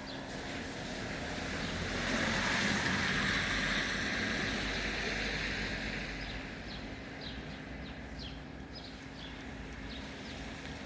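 A vehicle passing on a wet road: tyre hiss swells over a couple of seconds, peaks about three seconds in, then fades away. Faint short high chirps recur throughout.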